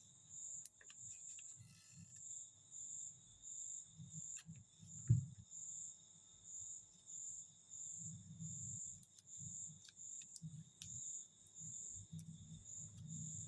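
A cricket chirping steadily in even, rapid pulses, with soft low handling knocks and one sharp thump about five seconds in.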